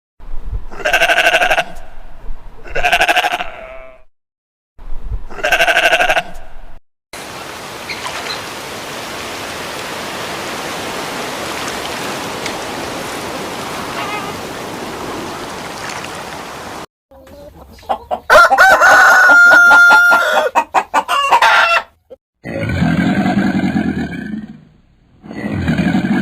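A run of separate farm animal calls: three short pitched calls, then about ten seconds of steady noise, then a loud, drawn-out call and two lower, deeper calls near the end.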